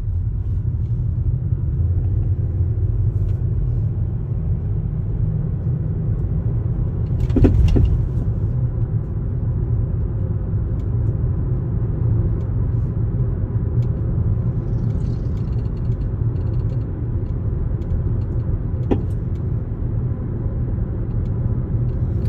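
Steady road and drivetrain rumble inside a 2021 Toyota RAV4 Hybrid on the move, with one loud clunk about seven seconds in and a lighter knock near the end. The clunk comes from the engine compartment and does not follow bumps, braking or the throttle; the owner wonders if it is a loose mount.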